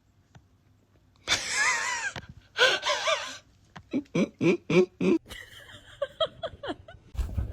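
Breathy vocal sounds: two cries with wavering pitch, then a quick run of short pulses at about four a second and a few more after, like wheezing laughter.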